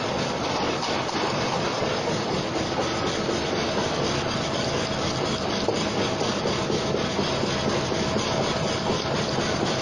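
MY-200 bread dicing machine running steadily, its blades chopping bread into small cubes, with a dense, even rattling clatter and a faint steady hum.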